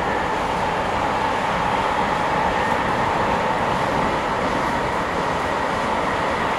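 Metro train running underground, heard from inside the carriage: a steady rumble and rush of wheels on rail, with a faint steady whine above it.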